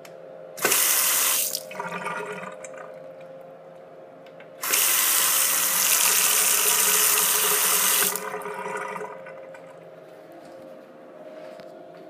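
Single-lever bathroom faucet turned on twice, water splashing into the sink basin: first briefly for about a second, then for about three and a half seconds, the splashing tailing off after each as the flow is shut off.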